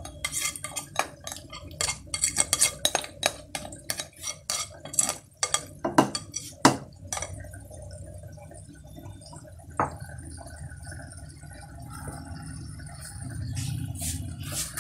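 A bowl of marinated chicken being emptied into a non-stick kadhai: quick clinks, taps and scrapes of the bowl against the pan for the first several seconds, then quieter with one more knock.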